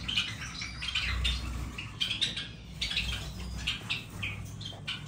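A colony of small cage finches chirping together, many short high calls overlapping in quick succession.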